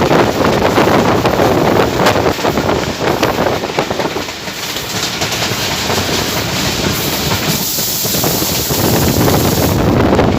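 Diesel-hauled passenger train running at speed, its wheels clattering over the rail joints. A high hiss joins for a couple of seconds near the end.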